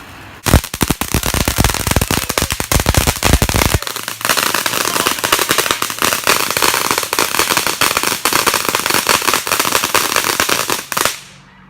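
Consumer firework going off in a rapid stream of crackling pops. Heavier bangs come in the first few seconds, then a denser, higher crackle carries on and cuts off shortly before the end.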